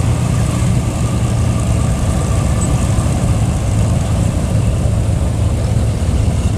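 Twin Allison V-1710 V12 piston engines of a P-38 Lightning running at taxi power as the aircraft rolls past close by, a loud, steady low drone with propeller wash.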